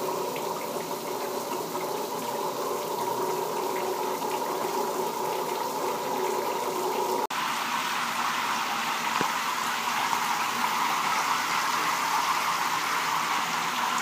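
Water spraying steadily from an LED shower head, which lights itself with a small turbine driven by the water flow. For the first half a few steady tones sit under the hiss; a brief dropout about seven seconds in is followed by a brighter, fuller spray sound.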